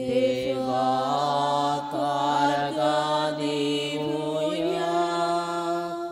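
Devotional singing of a slow, chant-like sung response to a prayer petition, with long held notes.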